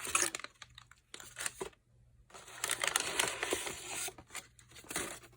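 Packaging and products being handled: rustling and crinkling with light clicks and taps, in three spells separated by short pauses.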